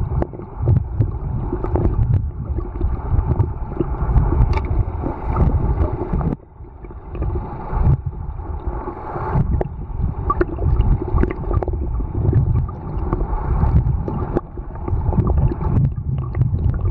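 Muffled underwater noise picked up by a submerged camera: a low, uneven churning rumble of moving water with scattered small clicks and crackles. The rumble drops away sharply about six seconds in, then builds again.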